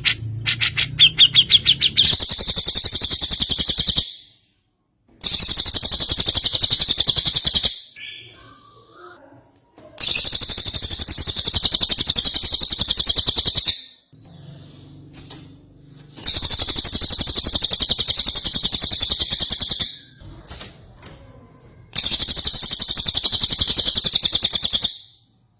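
Recorded birdsong of Javan cucak jenggot (grey-cheeked bulbul) combined with cililin: five bouts of very fast, high trilling, each two to four seconds long, starting and stopping abruptly, with softer scattered calls in the gaps between. It opens with a rapid run of clicking notes.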